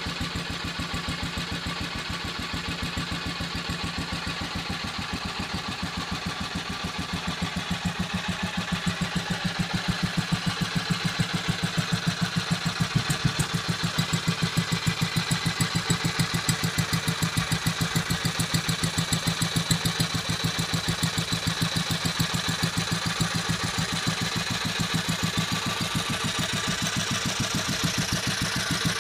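1947 Wolseley WD single-cylinder air-cooled stationary engine running at idle, with an even, steady beat of firing strokes.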